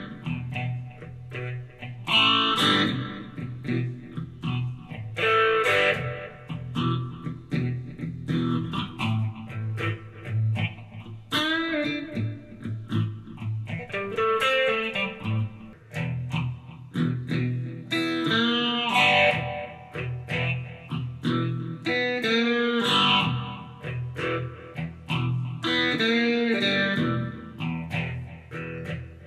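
Background music led by guitar, playing continuously.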